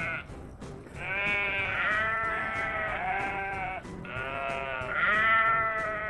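Sheep bleating in long, drawn-out, wavering calls, one after another.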